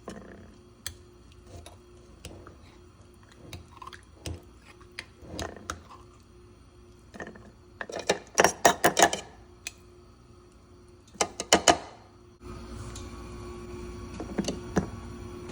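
Kitchen utensils and dishes being handled: scattered clicks and knocks, with two flurries of loud rapid clatter in the middle. About three-quarters of the way through, a steady running hum from a kitchen appliance starts and carries on.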